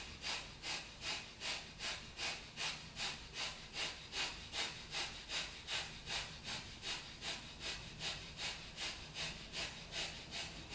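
Breath of fire, the Kundalini yoga breathing technique: rapid, even, forceful breaths through the nose, about two and a half a second, in a steady rhythm.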